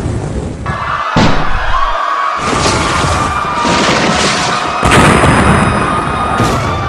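Several loud booms about a second apart over music, with a steady high tone running under them from about a second in.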